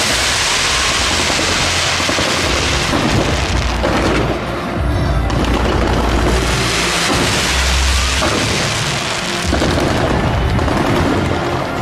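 Fireworks at close range: a continuous rush of fountains and shells firing and crackling, with low booms running underneath. Music plays along with it.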